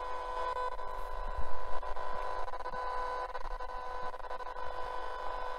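Cheap portable multiband radio's speaker on shortwave, giving out a steady hiss with a constant whine of several steady tones and no station audible. The owner suspects this noise is electrical interference from his recording area rather than the radio itself.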